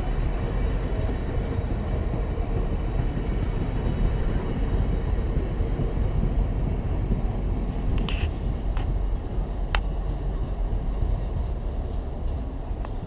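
Freight train of covered hopper wagons rolling past: a steady rumble of wheels on the rails, with a couple of sharp clicks later on.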